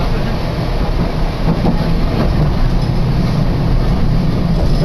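Chikuho Electric Railway electric train running along the line, heard from inside the car: a steady running noise, strongest in the low range.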